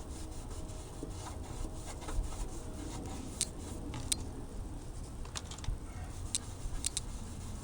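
Cloth with a baking soda and vinegar paste being rubbed back and forth over a cloudy plastic turn signal lens: a soft, steady scrubbing, with several sharp ticks in the second half.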